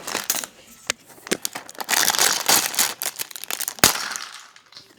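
Plastic packaging crinkling and rustling as it is handled and opened, loudest in the middle, with a few sharp clicks of small pieces.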